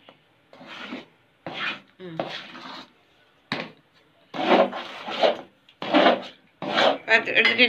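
A steel spoon scraping around a steel pan while stirring thick Mysore pak batter of roasted gram flour, sugar syrup and oil, in strokes about once a second. It is kept moving nonstop so the paste does not stick and burn. A single sharp knock of the spoon on the pan comes about halfway through.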